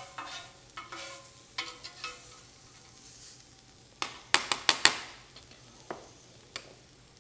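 A slotted metal spatula scrapes across the ridges of a hot electric grill plate in several strokes, over a faint sizzle. About four seconds in comes a quick run of sharp metallic clanks as utensils and the metal sheet pan are handled.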